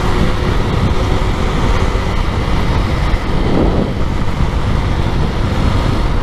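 Motorcycle riding along a road: the engine running under heavy wind noise on the rider's microphone, with a short rise and fall in pitch about three and a half seconds in.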